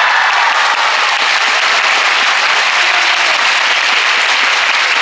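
A crowd clapping steadily, a dense and even applause.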